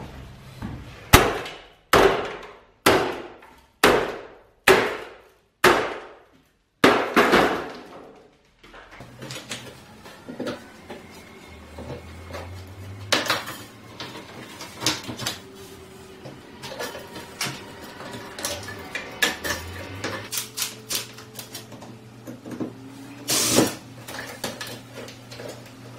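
A hammer strikes an old wall-mounted electrical box about eight times, a little under a second apart, each blow ringing briefly. After that come lighter metal clinks, scrapes and rattles as the box and its fittings are worked loose, with one louder knock near the end.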